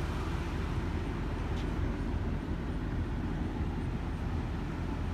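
Steady low rumble with a faint hum in it, unchanging throughout.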